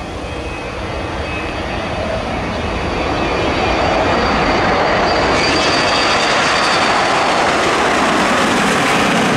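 Boeing 737-200 jet's Pratt & Whitney JT8D engines at takeoff power during the takeoff run and liftoff. The roar grows louder over the first few seconds, then holds steady, with a thin high whine through the middle.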